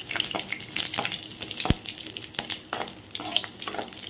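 Whole green chillies sizzling in hot ghee in a metal kadai, while a slotted steel spoon stirs them and clicks and scrapes against the pan. There is one sharper knock a little under two seconds in.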